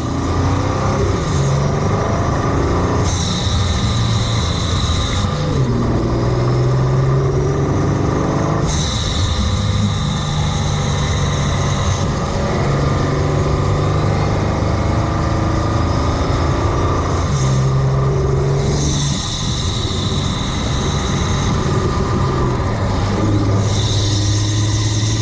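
Vehicle engine heard close to its air intake: a deep, truck-like engine note that rises and drops several times, with a loud intake hiss that comes in for stretches of a few seconds at a time.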